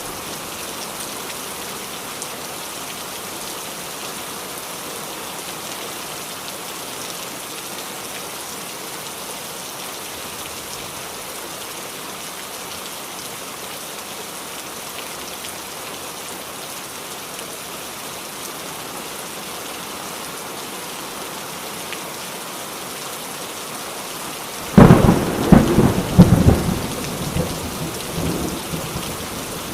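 Heavy rain falling steadily as a dense, even hiss. About 25 seconds in, a sudden loud clap of thunder breaks in with several jolts and rumbles away over about three seconds.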